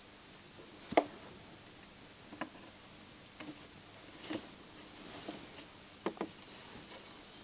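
Small clicks and taps of tweezers and a soldering iron tip against a circuit board and chip while soldering, at irregular intervals, with one louder click about a second in.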